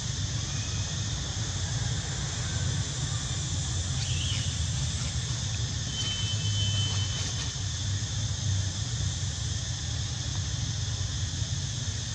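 Steady outdoor background noise with a low hum and hiss. A brief high chirp comes about four seconds in, and a thin high whistle lasts about a second around six seconds in.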